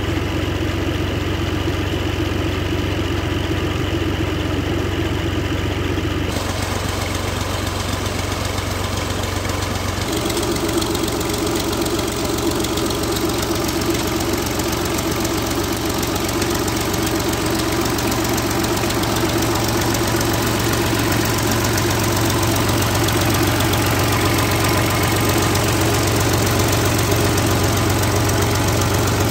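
New Holland Ghazi 65 HP tractor's diesel engine running steadily at a constant speed, driving a tube well pump through its PTO shaft.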